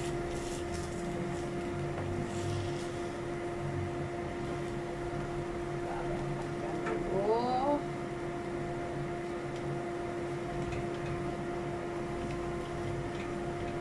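Steady hum of a kitchen fan with a constant low tone, under faint scraping of a wooden spatula stirring food in a wok.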